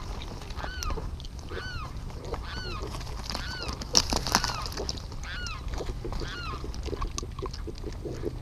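A bird calls over and over, short arched notes about once a second that stop in the last couple of seconds. Sharp clicks from the shells near the microphone come in about four seconds in, where black vultures are walking and pecking, over a steady low rumble.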